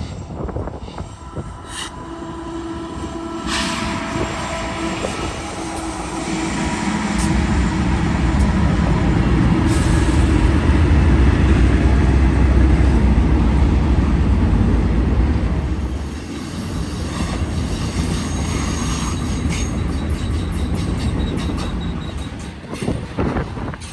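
Diesel locomotives of a freight train passing close by, their engines loudest about a third of the way in, followed by the rumble of the rail cars with high wheel squeal.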